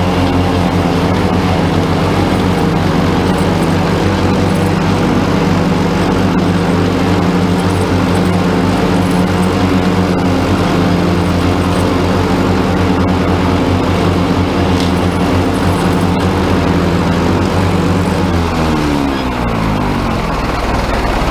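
Old Farmall M tractor engine running steadily under load while it drives a Lastec 721 rotary mower through the PTO. Near the end the engine slows and its pitch falls as it is throttled down.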